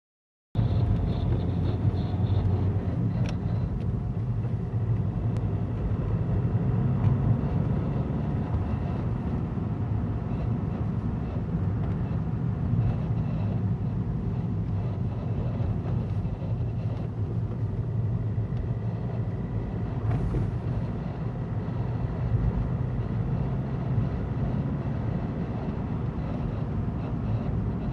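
Alfa Romeo 159 JTDm turbodiesel car driving under acceleration: a steady low engine and road rumble with a faint steady high tone above it. This is the strange noise the owner hears when accelerating in second, third and fourth gear, and its cause is unknown.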